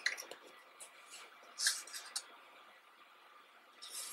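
Glossy photobook pages being handled: a few short paper rustles, the loudest about halfway through, then a page lifted to turn near the end.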